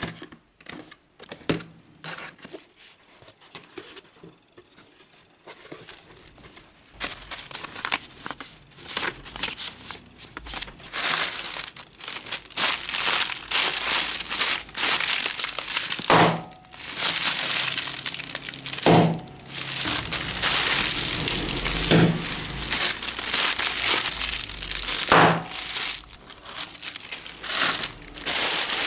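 Packing tape peeling and tearing off a cardboard box as it is opened, then plastic air-cushion packing pillows crinkling as they are handled and lifted out. Four sharp knocks fall in the second half.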